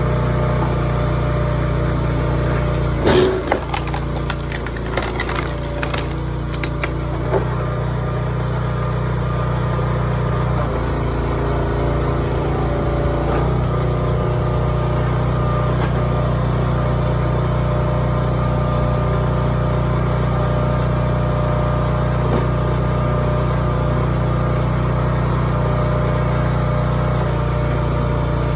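Small gas engine of a hydraulic log splitter running steadily, with wood cracking and splintering as a log splits about three to six seconds in, and a single knock a little later.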